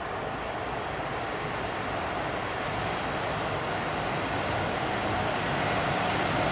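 EMD diesel locomotive approaching at the head of a freight train, its engine running with a steady drone that grows gradually louder as it nears.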